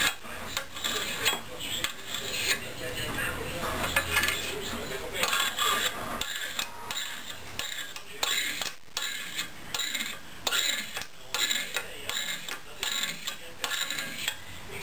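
Bamboo strip being scraped in a steel planing form: quick, uneven back-and-forth strokes of a hand-held blade, several each second, taking off fine shavings.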